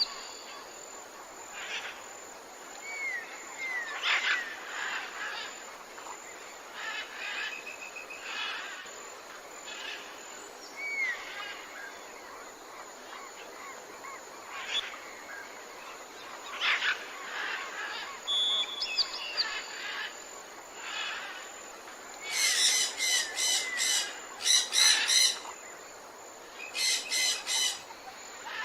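Several wild birds chirping and calling, with short whistled glides, over a faint steady background hiss. Near the end a loud, harsh call is repeated rapidly in two runs.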